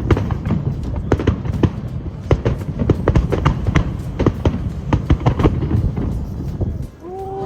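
Fireworks crackling: a dense, irregular stream of sharp pops and cracks. The crackling drops away just before the end, and a held, slightly rising tone comes in.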